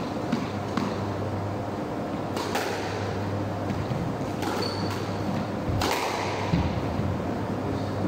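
Squash ball being hit with racquets and smacking off the court walls: a few sharp, echoing cracks, the loudest about two and a half and six seconds in, with a brief high squeak, over a steady low hum.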